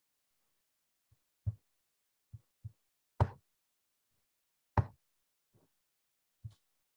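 About eight short, sharp clicks and knocks at irregular intervals. The two loudest fall in the middle, about a second and a half apart. They sound like a computer mouse being clicked close to the microphone.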